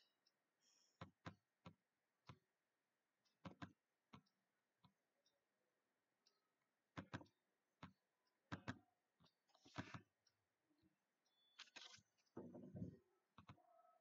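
Faint computer mouse clicks in near silence, scattered singly and in quick pairs at uneven intervals.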